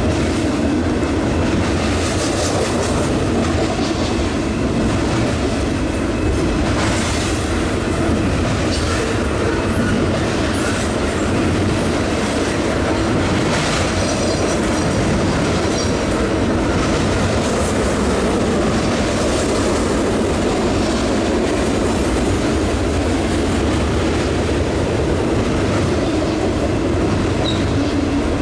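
Freight train of container cars loaded with garbage containers rolling steadily past: a continuous rumble of steel wheels on rail with repeated clicking over the rail joints. A faint high wheel squeal comes about halfway through.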